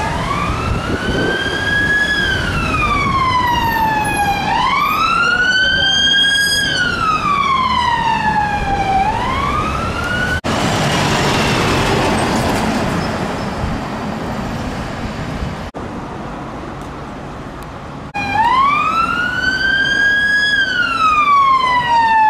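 A police car siren on a slow wail, each sweep rising and then falling over about four and a half seconds. About ten seconds in it cuts off abruptly to a fire engine passing close, heard as a rush of engine and road noise, and after a further break the police siren wail comes back.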